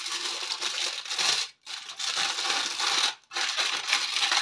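Aluminium kitchen foil crinkling as it is wrapped by hand around a flatbread roll, in three spells of crackling broken by two short pauses.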